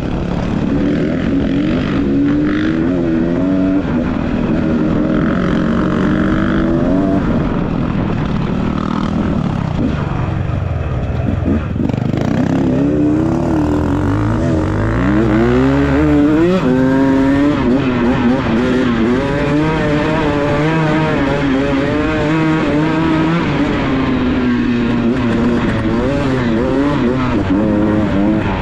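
Beta off-road motorcycle engine running under way, its pitch rising and falling as the throttle opens and closes; it drops low about ten seconds in, then revs up hard again.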